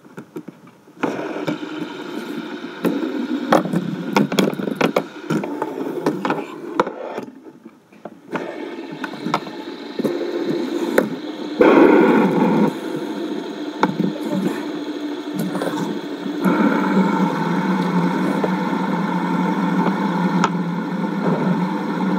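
Fidget spinners being flicked into spin and whirring steadily, with scattered clicks of handling. The hum starts about a second in and steps up several times as more spinners are set going.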